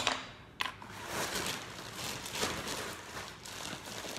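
A sharp knock on the wooden work table, then a few seconds of irregular rustling and handling noise as things are moved about.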